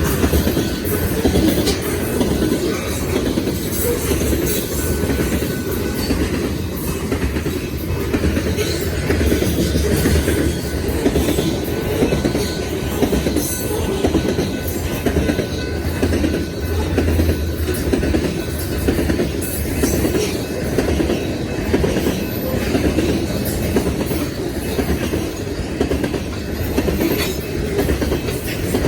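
Loaded freight hopper cars rolling past: a steady rumble of steel wheels on rail, with repeated clicks over the rail joints and a faint thin squeal from the wheels.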